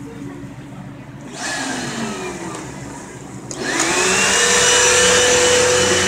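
Vacuum cleaner motor: a short burst about a second and a half in that winds down, then switched on again about three and a half seconds in, its whine rising and settling into a loud, steady run.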